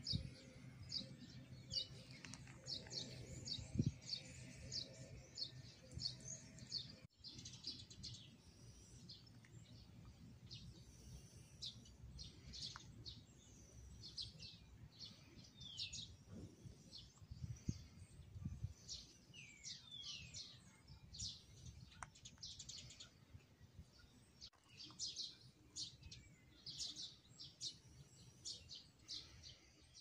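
Small birds chirping: many short, high chirps with a few falling notes, over a faint low rumble.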